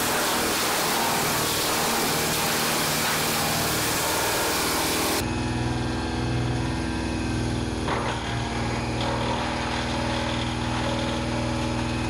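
Avant CH100 hydraulic wood chipper driven by an Avant 635 compact loader's engine, running steadily while branches are fed into it, with a dense rushing hiss for the first five seconds or so. It then turns to a steadier engine hum with the chipper spinning free, and a single short crack about eight seconds in.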